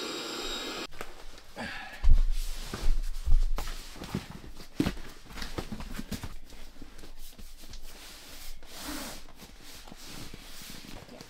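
An electric air pump runs and cuts off about a second in. A deflated air mattress is then folded and rolled up, its fabric rustling and rubbing, with several dull thumps in the first half.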